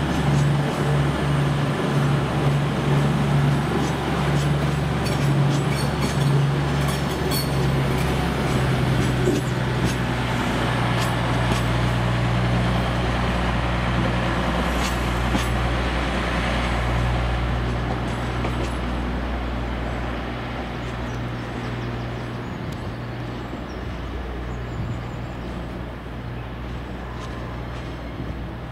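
Diesel train engine running, a steady low drone over rail and wheel noise, with a few sharp clicks, fading gradually over the last ten seconds.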